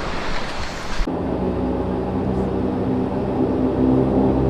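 About a second in, an even outdoor noise cuts off and gives way to the steady drone of a De Havilland Dash 8 Q400 turboprop taxiing, heard from inside the passenger cabin. The drone is a hum with several steady tones.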